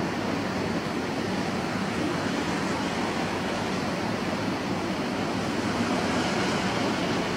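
Storm-driven waves breaking on a beach, mixed with strong wind: a steady, unbroken rush of surf and wind with no separate crashes standing out.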